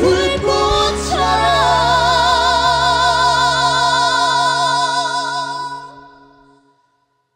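Trio of trot singers, two women and a man, singing the song's last line in harmony over soft accompaniment and holding a long final note with vibrato. The chord fades out about six seconds in, ending the song in silence.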